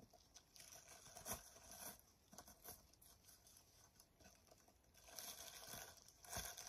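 Near silence with a few faint, short rustling crinkles.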